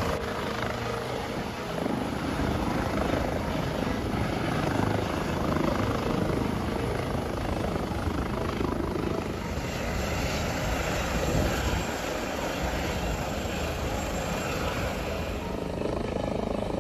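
Airbus H145 helicopter's rotor and turbine engine running steadily as it hovers close and settles onto a ship's flight deck.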